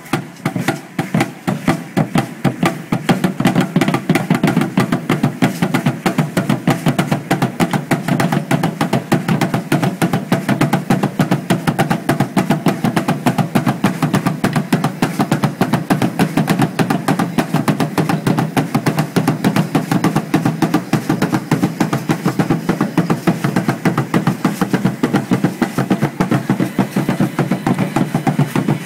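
Drum accompanying an Aztec dance, beating a fast, steady rhythm that grows louder over the first few seconds.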